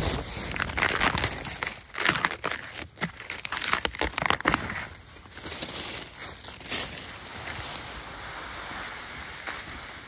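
Footsteps crunching through dry fallen leaves, in irregular crackling strokes for about the first five seconds, giving way to a steadier background hiss.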